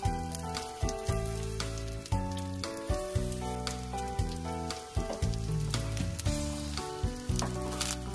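Tofu pancakes (dubu jeon) sizzling and crackling as they fry in oil in a pan, with background music of stepped, held notes playing over it.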